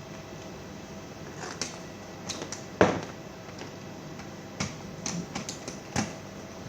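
Irregular sharp clicks and taps of small hard objects being handled, about a dozen, the loudest a knock about three seconds in, over a steady background hum.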